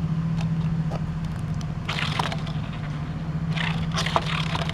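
A die-cast Hot Wheels toy car rolling and scraping across a surface in two short bursts, over a steady low hum.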